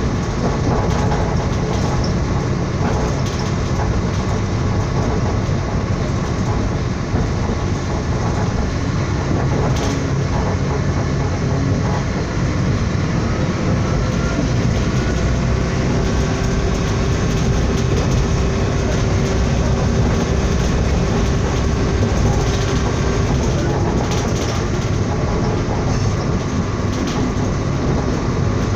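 A moving train heard from on board: the steady running rumble of the wheels on the rails. A faint steady whine runs through the middle part.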